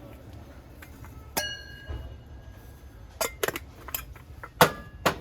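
Brass kitchenware clinking and knocking as it is handled. One strike about a second and a half in rings on briefly with a clear metallic tone, then several sharp knocks follow, the loudest near the end.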